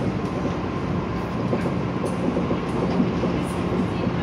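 Inside the car of a Hong Kong MTR M-Train electric multiple unit running at speed: a steady rumble of wheels on rail with a faint steady whine and a few light clicks.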